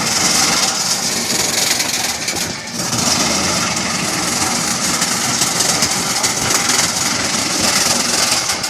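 Wood chipper running: a loud, steady machine noise with a brief dip about two and a half seconds in.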